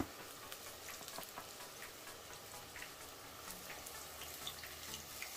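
Tempura-battered vegetables deep-frying in hot vegetable oil, the oil sizzling steadily with many small crackles.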